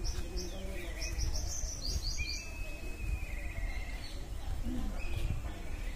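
Small birds chirping: a quick run of short rising chirps about a second in, then a held trilled note, over a low rumble.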